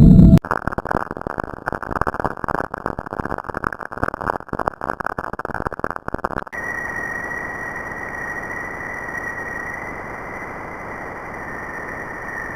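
Sonified space recordings: a crackling, fluttering noise cuts off about six seconds in and gives way to a steady hiss with a thin high whistle held over it.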